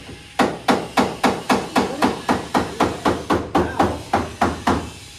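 Rapid, even hammering: about four hammer blows a second, each with a short ring, stopping shortly before the end.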